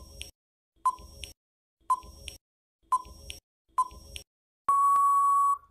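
Countdown timer sound effect: five short electronic beeps about a second apart, then one longer steady beep marking that time is up.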